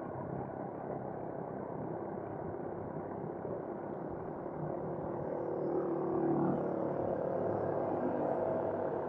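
Steady road and wind noise from a moving ride, with a motor vehicle's engine growing louder from about halfway in.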